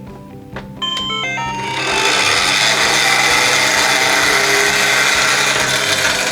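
Background music. About a second in comes a quick rising run of chime-like notes, then a loud, steady noisy rattle over the music.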